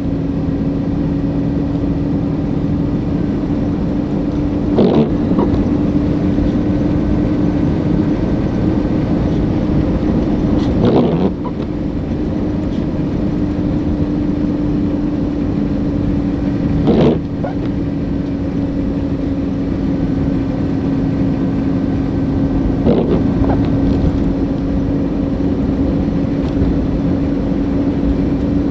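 Steady drone of a vehicle driving, with a constant hum and road noise. A brief sound cuts through it at even intervals, about every six seconds.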